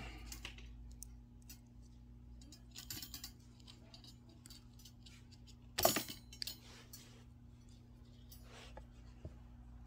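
Faint light metal clicks and rattles of thin steel wire and pliers against a round wire hanger ring, with a sharper click about six seconds in.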